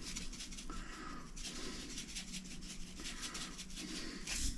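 Creole seasoning being shaken from a shaker bottle into a bowl of flour: soft, rapid rattling and rubbing.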